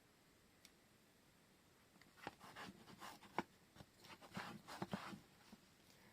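Soft paper handling: washi tape and ledger paper rustling and scraping in a run of small scratches and taps that starts about two seconds in.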